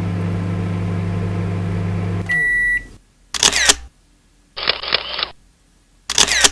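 A man's vocal impression of a microwave oven: a steady low hum for about two seconds, ending in a high beep. Then come three short hissing noises, each about half a second long.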